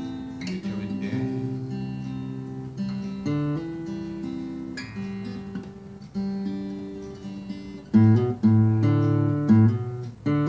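Acoustic guitar played alone, picked notes and chords in a closing instrumental passage of a song. A few louder strummed chords come about eight seconds in.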